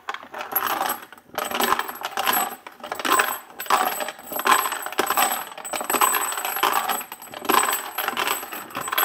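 Peterson 300 Norma Mag brass cases tumbling and clinking against each other inside the basket of a hand-cranked Frankford Arsenal rotary media separator, which is sifting out corn cob cleaning media. The rattle comes in surges, about eight of them, a little over one a second, as the crank turns.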